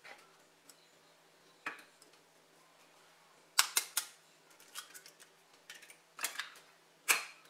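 Two eggs being cracked on the rim of a mixing bowl and broken open: sharp taps and shell cracks in two main groups, a little past halfway and again near the end, with lighter clicks between.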